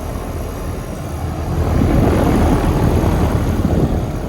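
Goodman GSX13 5-ton central air conditioner condensing unit running just after start-up: its condenser fan and Copeland scroll compressor make a steady low drone. About two seconds in, a louder rush of air swells for nearly two seconds, then eases off.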